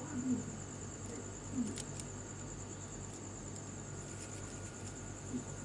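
Albino ringneck dove (puter) giving short, low coos right at the start, about a second and a half in, and again near the end, over crickets trilling steadily in the background.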